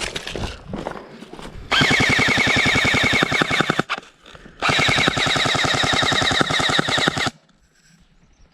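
Airsoft light machine gun firing two long full-auto bursts of about two to three seconds each, a rapid even stream of shots with a whine that rises as each burst starts.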